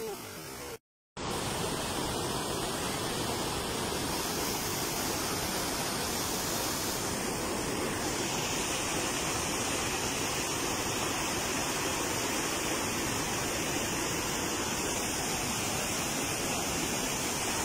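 Steady rushing roar of a waterfall carrying muddy floodwater. It cuts out to silence briefly about a second in.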